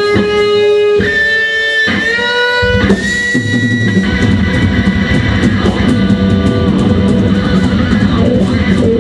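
Electric guitar played on a red Stratocaster-style guitar: long held notes, some bending in pitch. About three seconds in, bass and drums join in under it for a full rock band sound.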